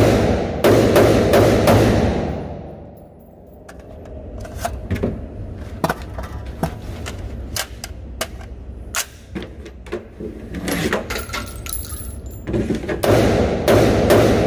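Rapid semi-automatic rifle fire in an indoor range, about three or four shots a second, stopping about two seconds in. A lull follows with scattered clicks and knocks of the rifle being handled, then rapid fire starts again near the end.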